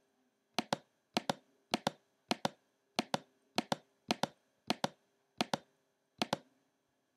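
Computer mouse button clicked about ten times at an even pace, each click a quick double tick of press and release. Each click sets a point of a lasso selection.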